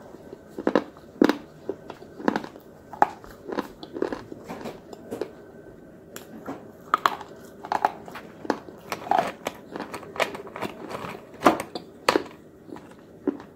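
Crunches of thin white sticks being bitten and chewed, an irregular series of sharp snaps about one or two a second, with a short lull about halfway through.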